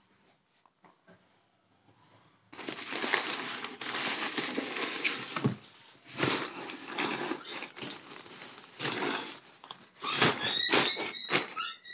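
Crumpled brown kraft packing paper rustling and crinkling as it is handled in a cardboard shipping box, starting about two and a half seconds in and going on in uneven surges. A few short high squeaks come through near the end.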